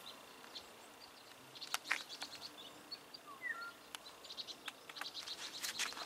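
Small birds chirping in short high notes and brief sliding calls. A few sharp clicks stand out about two seconds in.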